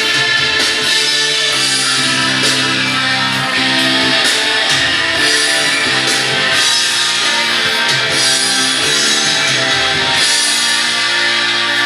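Instrumental music led by guitar, with steady sustained bass notes and regular sharp hits.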